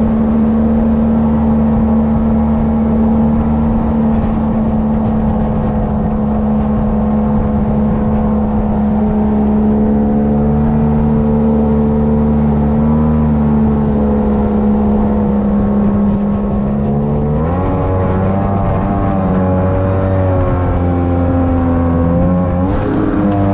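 Boat engine running steadily at high speed. About three-quarters of the way through, its pitch shifts and wavers.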